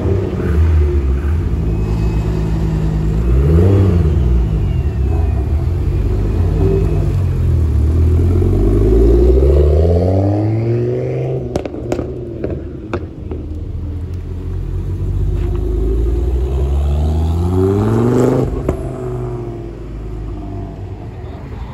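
Ford Sierra Sapphire's engine revved hard several times as the car pulls away, its pitch rising and falling with each rev. There are a few sharp cracks about halfway through, and the sound fades near the end as the car drives off.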